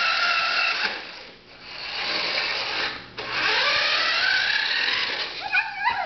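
Remote-control toy truck's electric motor and gears whirring as it drives across a wooden floor. It cuts out about a second and a half in and briefly again near three seconds, then spins back up with a rising whine.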